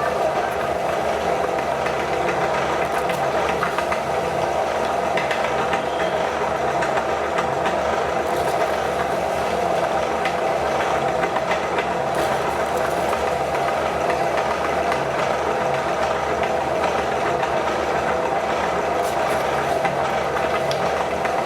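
Electric meat grinder motor running steadily, with a continuous even hum.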